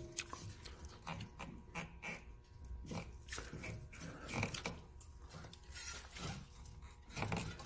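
Irregular light clicks, knocks and rubbing of a gloved hand working on a car's lowered front strut, steering knuckle and the cables clipped to it.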